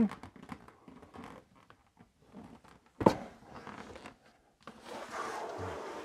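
Large cardboard box being handled and set down: light rustling, a single sharp knock about three seconds in, then a longer scraping rustle near the end.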